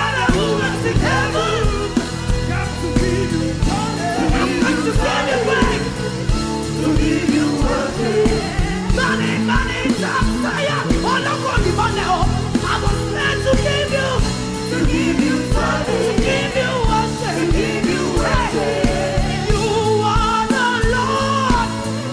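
Live gospel praise music: a band with steady bass, singing over it.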